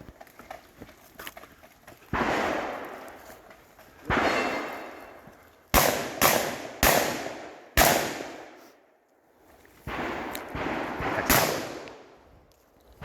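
Shotgun fired in a string of single shots at uneven spacing, several coming about half a second to a second apart near the middle, each shot trailing off in an echo.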